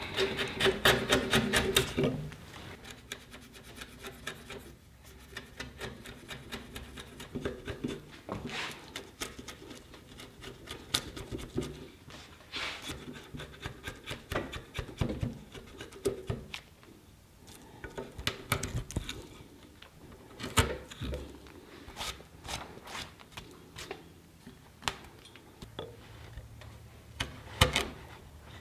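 Wide timber-framing chisel cleaning out a mortise in a wooden post. It is tapped rapidly for about the first two seconds, then pared by hand with scraping cuts through the wood and occasional sharp knocks.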